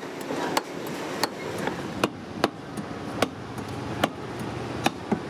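Small nails being hammered into rubber tyre with the bent end of a metal rod: sharp knocks at an uneven pace of about one to two a second, around nine strikes in all.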